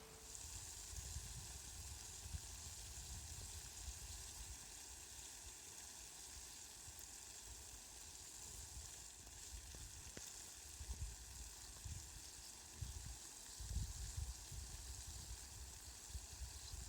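Steady hiss of falling rain, with low rumbles coming and going, strongest in the second half.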